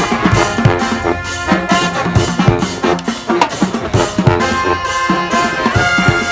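Brass street band playing live: trumpets and trombones over a steady drum beat.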